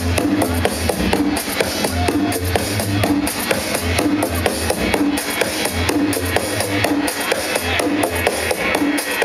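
Electronic dance music played loud over a club sound system, with a steady kick-drum beat, pulsing bass notes and ticking hi-hats.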